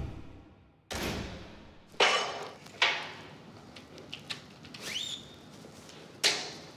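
Barbell and weight plates clanking against a squat rack as the bar is handled: several sharp metallic knocks with a short ringing decay, and a brief squeak near the end.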